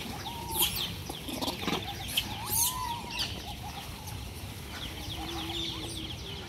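Animal calls: many quick, high chirps and a few short wavering call notes, thinning out after about three seconds.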